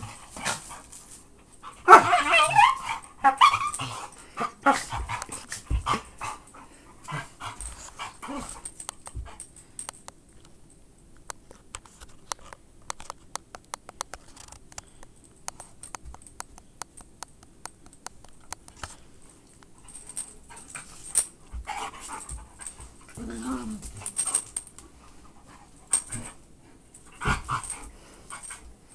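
Chocolate Labrador and miniature pinscher play-fighting: irregular bursts of dog whines and yips with scuffling, loudest in the first few seconds. A quieter stretch of light clicking follows, then more bursts near the end.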